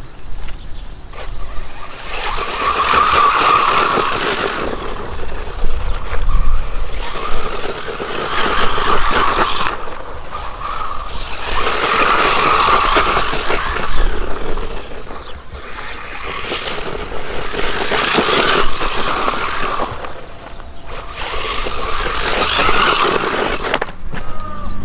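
WLToys 144001 electric RC buggy driven hard over loose dirt and gravel: its motor and drivetrain whine in surges every few seconds as it accelerates and passes, with the tyres scrabbling and spraying gravel. The drivetrain has a metal pinion meshing a metal drive gear.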